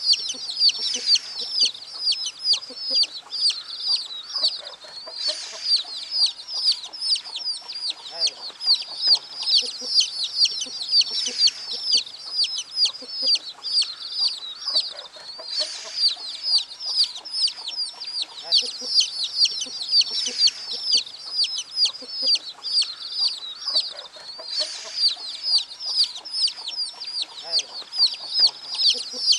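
A flock of young chicks peeping without pause: many short, high, downward-sliding peeps overlapping several times a second.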